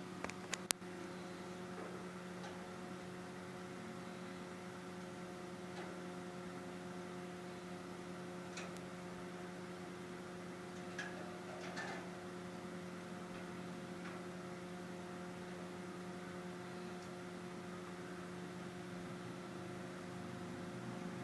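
Steady electrical hum with a few faint clicks, two of them sharp in the first second.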